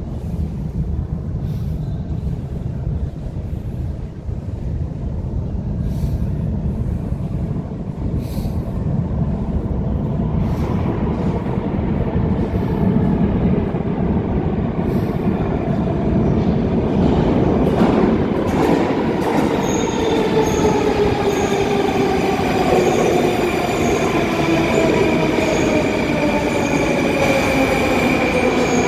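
Metro train coming out of the tunnel and pulling into the station: a low rumble that grows steadily louder, then a whine of several tones falling in pitch as it slows, with scattered clicks from the wheels on the track.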